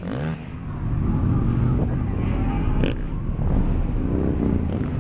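Car engine running with a steady low rumble as the car rolls slowly along, the pitch wavering a little.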